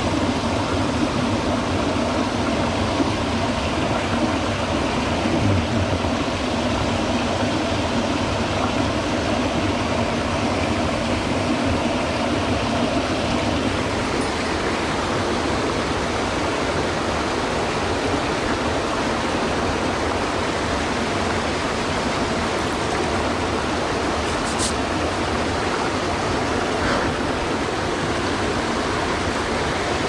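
Mountain stream rushing steadily over rocks, with a small waterfall spilling into a pool, heard close at the water's edge.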